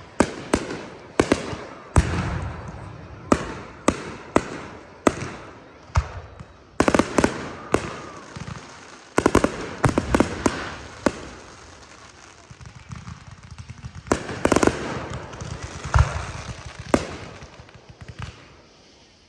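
Fireworks display: a run of sharp bangs, one every second or so, each dying away in an echo, with quick clusters of crackling reports about seven, ten and fifteen seconds in.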